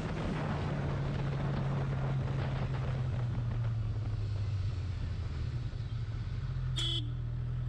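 Sport motorcycle engine running steadily on the road, under a rush of wind noise; its note falls a little about halfway through as the bike slows. A few short, sharp sounds come near the end.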